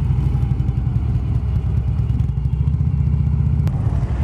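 Harley-Davidson V-twin motorcycle engine running at low speed as the bike rolls slowly, a steady low rumble.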